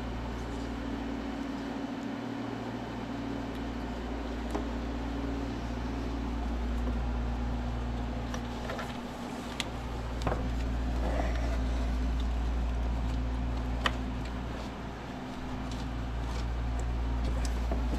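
Steady low mechanical hum from a running appliance or fan, with a few faint clicks and taps from spark plug wires and boots being handled.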